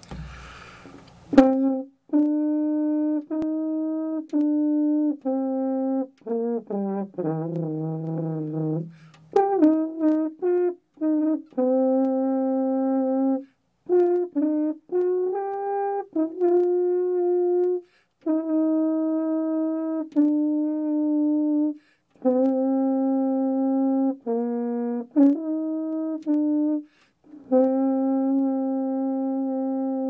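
Double French horn played solo: mostly long held notes in its middle register, broken by short pauses for breath, with a quicker run dipping to low notes about seven seconds in.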